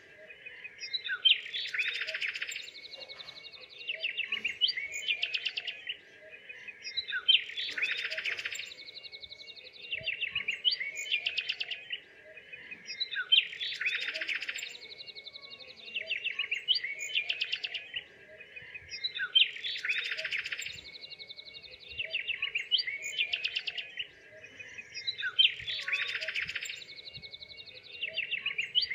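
Songbirds chirping and trilling. The same sequence of calls repeats about every six seconds, as a looped recording does, over a faint steady hum.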